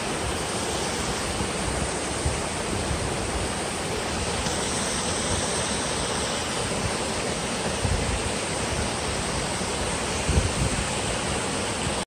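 Steady rush of a rocky woodland stream cascading down over boulders in small falls, with a couple of low bumps on the microphone a little after ten seconds in.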